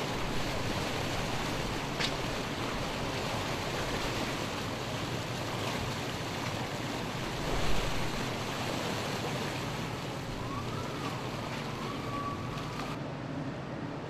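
Steady rush of sea water and wind, waves splashing around a small submersible floating at the surface, with a faint whistling tone that rises briefly about ten seconds in.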